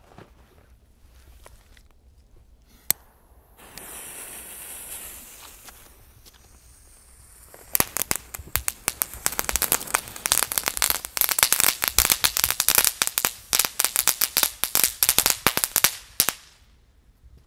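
Funke Star Kids category 1 ground firework: one sharp click, then a short hiss, then about eight seconds of rapid, dense crackling pops that stop abruptly.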